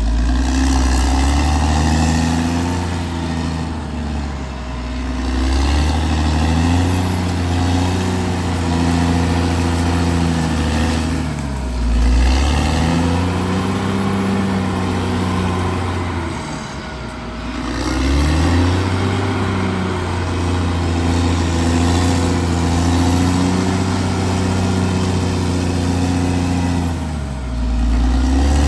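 Caterpillar D6R XL bulldozer's diesel engine working under load, its note sagging and recovering several times as it pulls down and picks back up.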